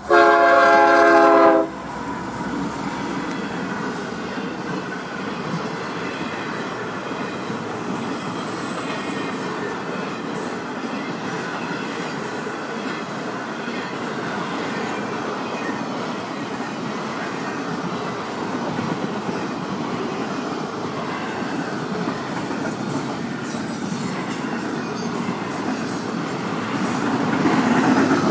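Horn of Florida East Coast Railway locomotives 101 and 100 sounding one blast about a second and a half long at the crossing, followed by the steady rumble and wheel clatter of intermodal container cars rolling past. A brief high wheel squeal comes about eight or nine seconds in.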